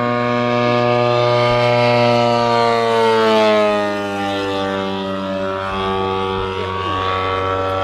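Desert Aircraft DA-150 twin-cylinder two-stroke gas engine of a 46% scale Ultimate biplane in flight, a steady drone that slides down in pitch about three to four seconds in and climbs again near the end.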